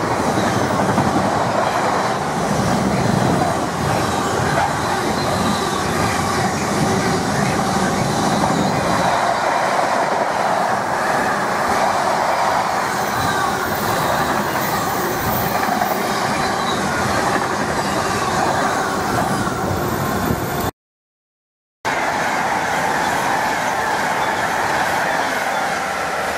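Container wagons of an intermodal freight train rolling past close by: a steady noise of steel wheels running on the rails. About 21 seconds in it cuts off abruptly, and after a second of silence a Class 390 Pendolino high-speed electric train is heard approaching.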